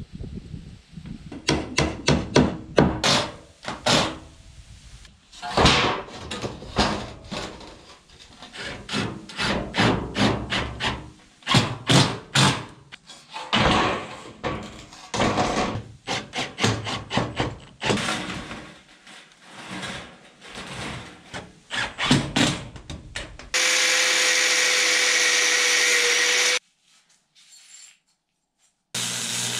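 Ribbed steel roofing panels being slid and set down on rough-cut wooden roof boards, with irregular knocks, rattles and scrapes. Near the end comes a steady high whirring noise for about three seconds, which cuts off suddenly.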